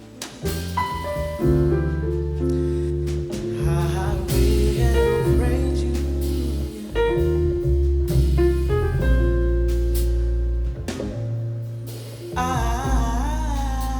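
Instrumental passage by a small jazz band: drum kit hits, walking double bass and piano chords. A wavering horn line comes in near the end.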